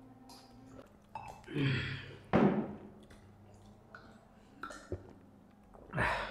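A person burping and exhaling between gulps of a drink, with loud bursts about two seconds in and again near the end, and faint clinks of glass mugs in between.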